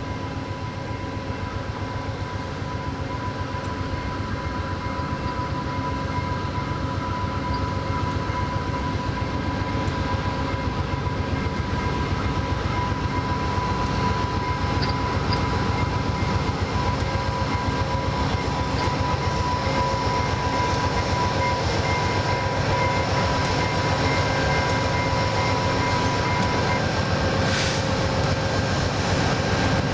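VIA Rail GE P42DC diesel locomotive and its passenger coaches running slowly into the station, the engine and wheel rumble growing steadily louder as it nears, with a steady high whine over it that stops near the end. A short hiss comes just before the end.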